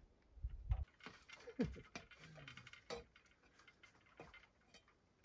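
Irregular sharp clicks and light knocks, with a low thump about half a second in.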